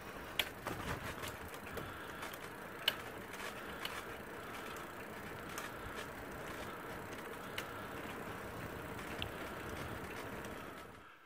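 Bicycle towing a caravan trailer rolling along a paved path: steady tyre and riding noise with irregular clicks and rattles, dropping away near the end.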